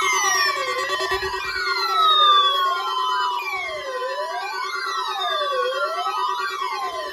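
Electronic siren wailing: a tone whose pitch falls and rises again about every second and a half, layered with higher falling sweeps over a steady droning tone.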